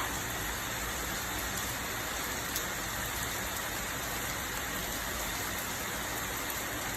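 Steady, even rain-like hiss with a single faint click about two and a half seconds in.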